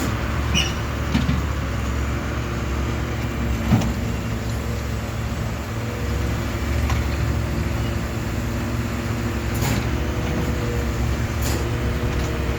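Heavy diesel construction equipment running steadily with a constant low engine hum, broken by a few short knocks or clanks.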